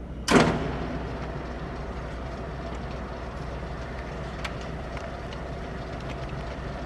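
Littell 40-24 power coil reel turning under its motor drive, running with a steady mechanical hum. A loud clunk sounds about a third of a second in, and faint ticks come later.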